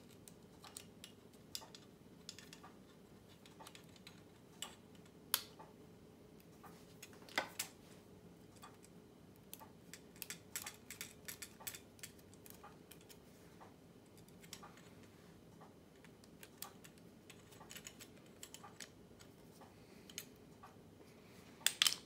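Light metallic clicks and taps from handling a princess phone's rotary dial as a screwdriver drives the finger-stop screw back in, with a denser run of clicks midway and a sharp double click near the end.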